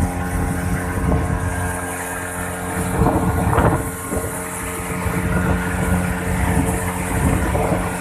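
Motorboat engine running steadily with a constant hum, over water rushing and splashing along the hull; the rush swells for a moment about three seconds in.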